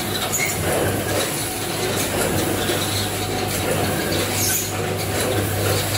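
Automatic sugar packing machine running, its multihead weigher working steadily: a constant low machine hum with light mechanical clatter.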